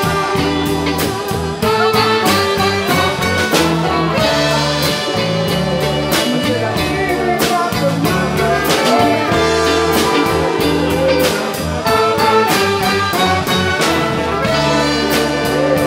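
Live band playing, with trumpet and other horns over a drum kit and electric guitar. The drums keep a steady beat.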